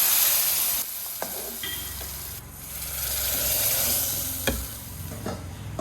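Hot oil sizzling as a sambar tempering of mustard seeds, curry leaves, shallots and sambar powder is fried and stirred in a pan, with a few light clinks of the spoon against it. The sizzle is loudest at the start, eases, then swells again in the middle.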